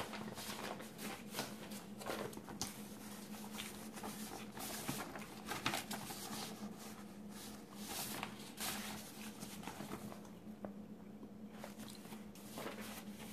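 Sheets of printed photo paper being handled, shuffled and flipped: irregular rustles and crinkles, with a steady low hum underneath.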